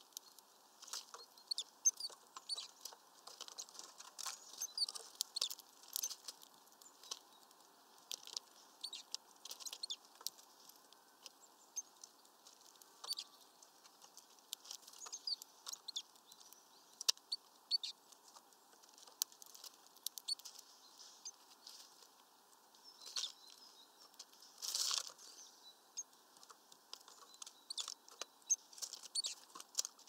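Blue tits and great tits pecking at a peanut-filled mesh feeder: irregular sharp taps and clicks of beaks and claws on the net. A longer rustle of wings about 25 seconds in.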